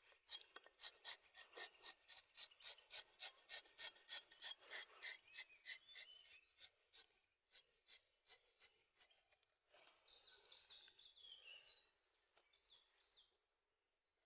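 Rubber-tapping knife shaving bark from a rubber tree in quick, short scraping strokes, about four a second, which fade out after five or six seconds. A bird chirps a few times near the end.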